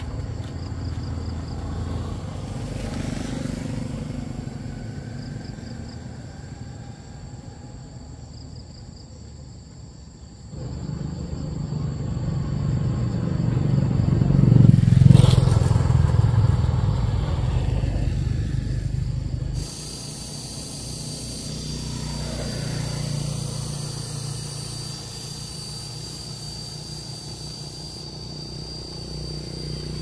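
A vehicle engine running with a steady low rumble, cut off abruptly twice. In the middle stretch it grows louder to a peak and then falls away again.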